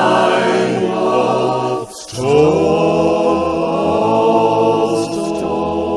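Gospel choir singing in harmony, drawing out the closing line of the hymn in long sustained chords. There is a brief break about two seconds in, then one long held chord.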